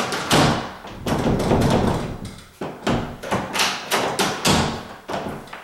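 A door being pushed against its strike plate several times, the latch bolt knocking and thudding on the metal plate: the latch is still not depressing all the way.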